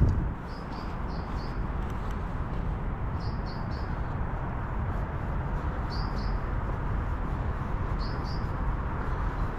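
A small bird chirping in quick runs of two or three high notes, every second or two, over steady background noise.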